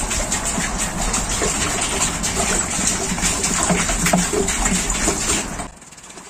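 Water pouring from a large plastic bottle into a plastic fresh-water tank through its filler hole, splashing and glugging. The pour stops sharply near the end.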